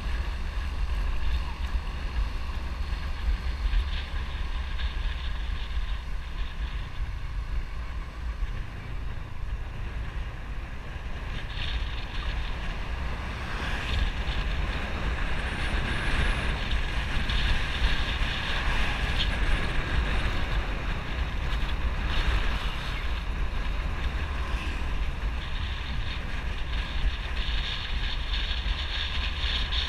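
Wind buffeting the microphone of a camera on a moving motorbike, a steady low rumble with the motorbike's engine running underneath.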